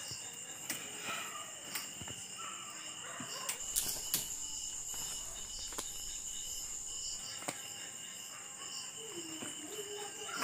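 Crickets chirring steadily in the dark, a high continuous trill, with scattered sharp clicks and rustles as the banyan tree's hanging aerial roots are pulled and shaken.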